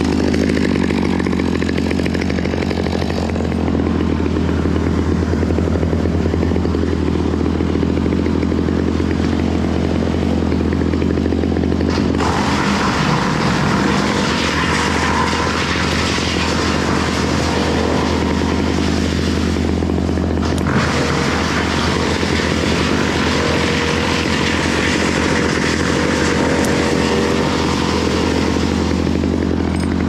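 Engine running steadily with a constant low hum. A harsher, hissier layer joins about twelve seconds in and drops away near twenty-one seconds.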